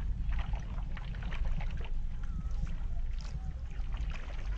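Stand-up paddleboard paddle working through the water, with small splashes and trickles from the strokes, over a steady low rumble.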